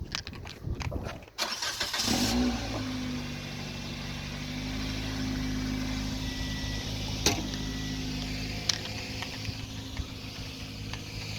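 A car engine starts: a burst of cranking about a second and a half in, a short rev as it catches, then a steady idle. Two brief sharp knocks are heard over the idle.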